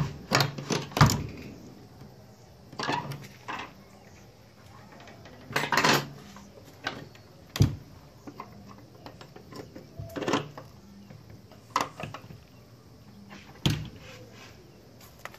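Wooden plank door and its metal barrel bolt being handled: irregular sharp clicks, clacks and knocks, a quick cluster in the first second and then single hits or short groups every second or two.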